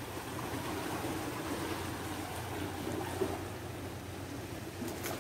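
Small waves washing against shoreline rocks, a steady wash of water, with a brief tap about three seconds in.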